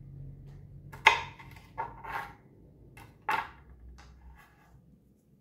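Chef's knife chopping broccoli on a bamboo cutting board: a handful of sharp knocks as the blade strikes the wood, the loudest about a second in and fainter ones toward the end.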